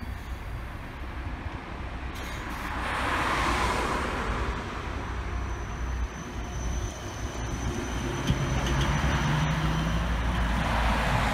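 SOR EBN 11 battery-electric city bus pulling away from a stop and driving off, with no diesel engine: electric drive and tyre noise, growing louder over the first few seconds, with a faint steady high whine.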